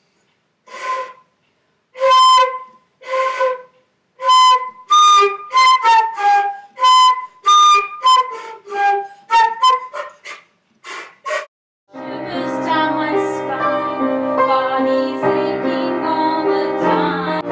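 A wind instrument plays a melody of short, separate, breathy notes. About twelve seconds in, a fuller instrument takes over with sustained chords and a bass line.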